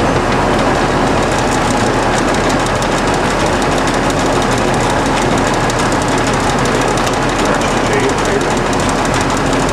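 LeBlond 1610 Servo Shift heavy-duty engine lathe running under power, its 20 HP motor drive and geared headstock and feed giving a steady, dense mechanical running noise with a low hum.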